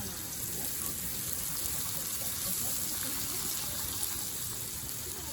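Steady rushing, trickling noise of flowing water.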